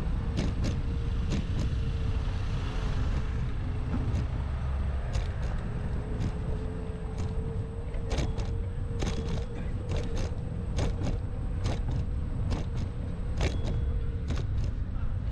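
Steady low rumble and hum of a running vehicle, with many irregular sharp clicks and rattles.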